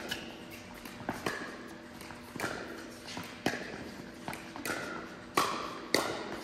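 Pickleball rally: paddles striking the hard plastic ball in a series of sharp pops, about one a second.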